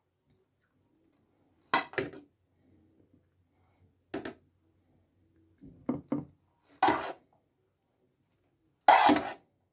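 Kitchen utensil and dish clattering as broccoli romano is put into a dish: five short, sharp knocks and clinks a second or two apart.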